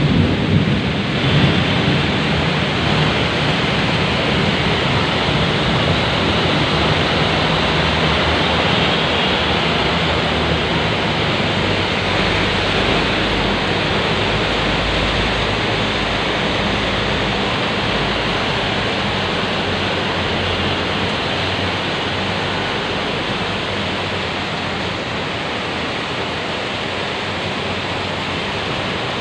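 Heavy rain pouring down in a steady, dense hiss. A low rumble swells and fades around the middle.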